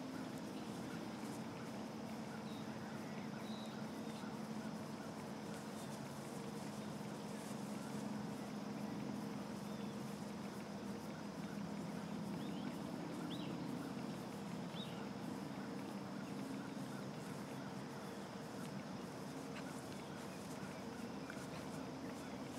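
Open-air rural ambience: a steady low hum, like distant traffic or machinery, with a few short bird chirps scattered through it.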